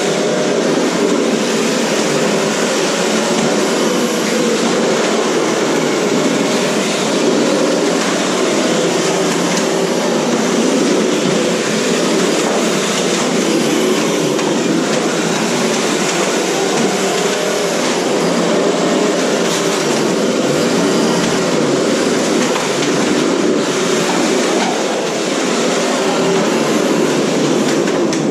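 Several 1/10-scale radio-controlled cars running at once and ramming each other: a steady, dense whirring of small electric motors and drivetrains mixed with the knocking and clattering of the cars colliding.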